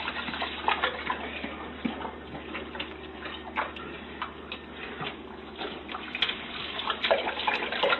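Water splashing and sloshing in a tub, with many small clicks and knocks throughout.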